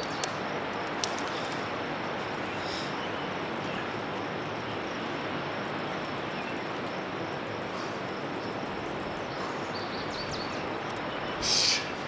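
Steady outdoor background hiss with a few faint clicks in the first second. About eleven and a half seconds in there is a short, sharp hissing burst, the loudest sound here.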